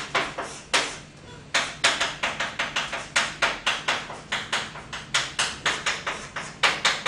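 Chalk striking and scraping on a blackboard as characters are written: a rapid run of sharp taps, about four or five a second, after a few scattered strokes and a short pause about a second in.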